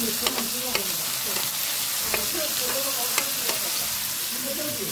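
Marinated meat sizzling as it grills: a steady frying hiss with a few sharp ticks and pops.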